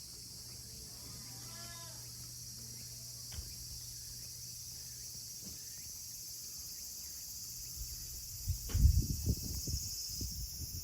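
Steady high-pitched chorus of summer insects, with a short call about a second and a half in and a click a little later. From about eight seconds on come loud, irregular low thumps and rumbles.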